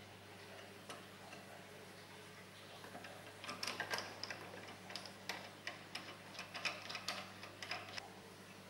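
Irregular small clicks and taps, several a second for about five seconds from a third of the way in, as hands work the upper arm and blade of a Proxxon scroll saw that is switched off. A faint steady low hum lies underneath.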